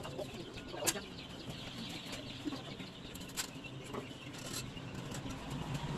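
Light clicks and knocks from a circular saw being handled and adjusted while switched off, the sharpest about a second in, over faint calls of birds such as pigeons or chickens.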